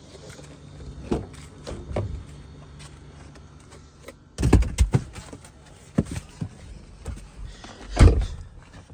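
Scattered knocks and clunks from hands-on work on the car, with a few heavy low thuds about halfway through and the loudest one near the end.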